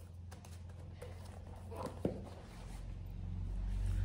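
Soft rustling of a paperback book being handled, with one light tap about two seconds in, over a low rumble that grows louder near the end.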